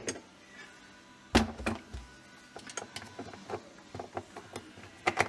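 Scattered clicks and knocks of plastic fridge interior panels and screws being handled during disassembly, with one louder knock about a second and a half in and a quick run of clicks near the end.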